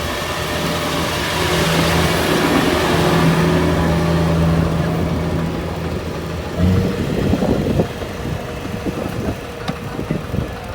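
Kubota RT140 single-cylinder diesel engine of a two-wheel walking tractor running hard, a steady low note that grows louder. About two-thirds of the way through, the steady note breaks off into irregular knocks and rattles.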